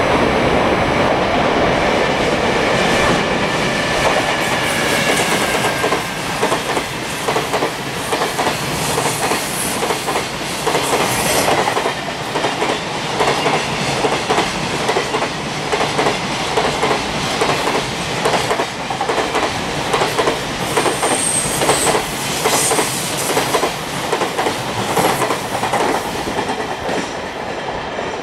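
A long electric freight train hauling container wagons passes close by. The locomotive's motor whine falls slightly in pitch over the first few seconds, then the wagons' steel wheels clatter unevenly over the rail joints. About three-quarters of the way through there is a brief high wheel squeal.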